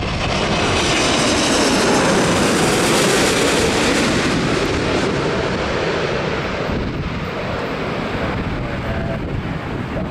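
Airbus A380 on landing approach passing low overhead, its four Engine Alliance GP7200 turbofans making a steady jet roar at approach power. The roar is loudest a few seconds in and then eases as the airliner moves away toward the runway.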